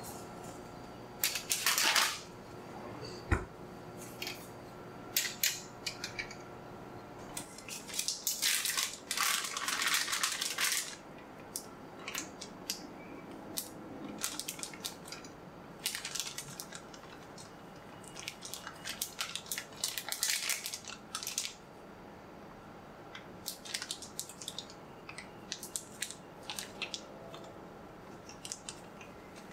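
Plastic bag of bread flour crinkling and rustling in bursts as it is handled, opened and tipped to pour flour into a bowl, with a single sharp knock about three seconds in.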